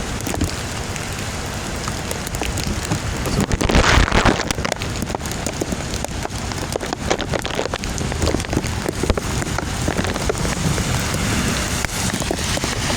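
Storm rain falling steadily, many drops ticking close by, with a brief louder rush about four seconds in.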